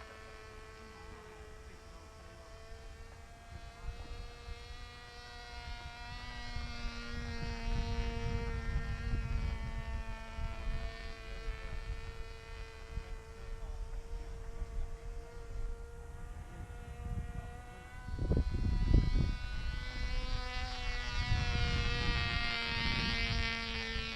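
Small RC powered glider's motor and propeller buzzing steadily in flight, the pitch wavering slightly as the plane moves about. Gusts of wind rumble on the microphone now and then, the strongest near the end.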